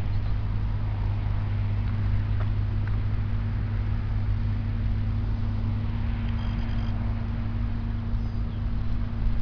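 Tractor engine running steadily, a constant low hum that holds one pitch throughout.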